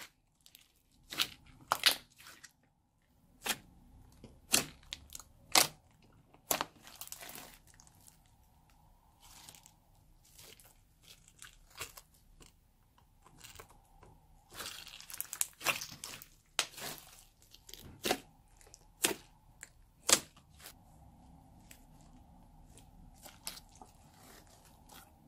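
Thick slime being squeezed, folded and stretched by hand, giving sharp irregular pops and clicks about one to two a second, with a denser crackle midway. The pops thin out and grow faint near the end.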